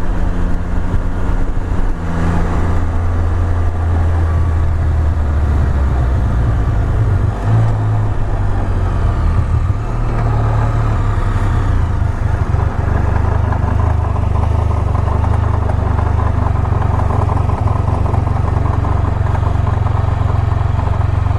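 Can-Am Spyder F3-T's 1330 three-cylinder engine running under way, its note changing several times. The rider suspects a worn front drive pulley behind a noise heard mainly on deceleration.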